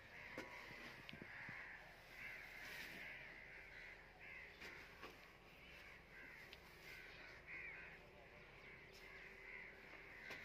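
Faint birds calling over and over, a continuous run of harsh calls, with a few soft knocks and scrapes of a shovel on an earth floor.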